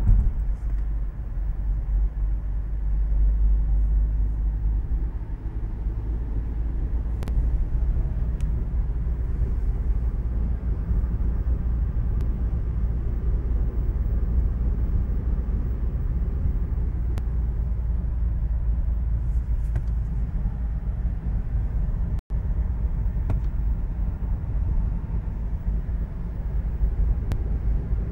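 Steady low rumble of a Peugeot 508 estate cruising at about 100 km/h, heard from inside the cabin: road and engine noise. The sound cuts out for an instant about 22 seconds in.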